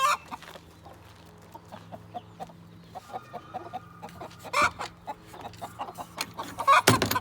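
Chickens clucking in a coop, with short taps and a couple of loud knocks, one at the start and one near the end.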